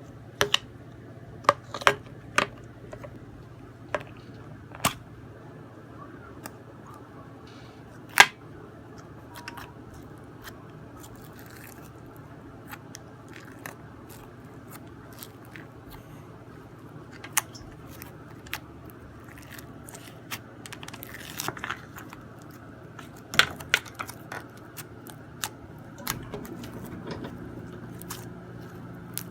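Chocolate crunchy slime with foam beads being squeezed and poked, giving scattered sharp crackles and pops over a steady low hum.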